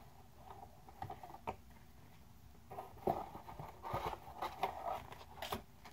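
Rummaging through packed items in a box: soft rustling and scattered light clicks and taps, busier from about three seconds in.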